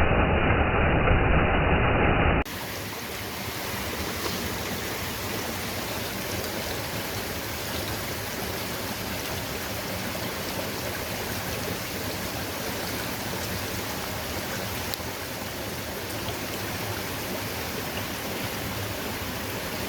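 Stream water flowing, a steady rush. For the first two seconds or so a louder, muffled rushing noise plays, then cuts off abruptly.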